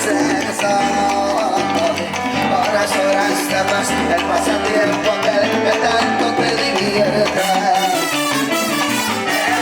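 A Latin dance orchestra playing live during a sound check, loud and steady, with sustained instrumental lines over a driving rhythm.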